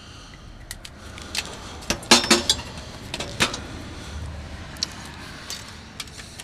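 Handling noise of a steel tape measure and gloved hands working along a PTO shaft: scattered light clicks, taps and rattles, loudest about two seconds in and again near the middle, over a steady low background.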